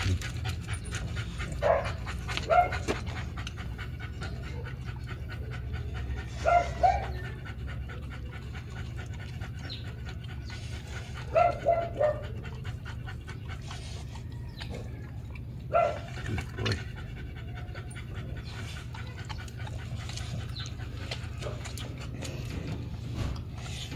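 American bully dogs panting rapidly and steadily, with a few short, louder sounds breaking in now and then.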